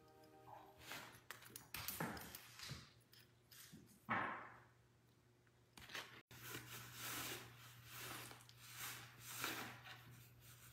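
Faint rustling and scraping as a kitten paws and tugs at the zipper pull of a quilted fabric bag. About six seconds in, after a cut, kittens scrabble on a cardboard box over a low steady hum.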